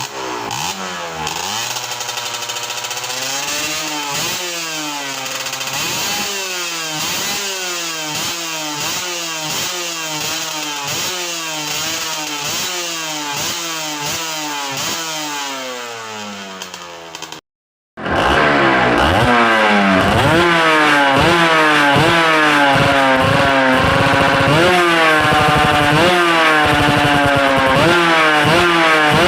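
Yamaha TZM 150 single-cylinder two-stroke engine revved up and down over and over, the pitch rising quickly and sinking back about once a second. The sound cuts out briefly about two-thirds through and resumes louder with the same revving.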